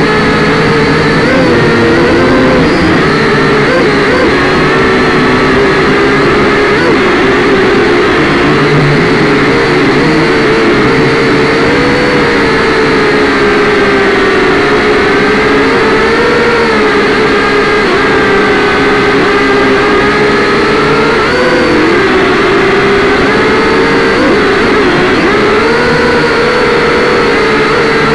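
Syma X5C-1 quadcopter's four small electric motors and propellers whining loudly, heard up close through its own onboard camera. The pitch wavers up and down as the throttle changes to hold and move the drone.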